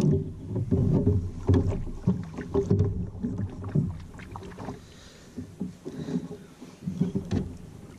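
Irregular knocks, bumps and rubbing on a plastic fishing kayak's hull and the gear on it as someone shifts about and handles things aboard. The knocks are busiest in the first few seconds, ease off in the middle and pick up again near the end.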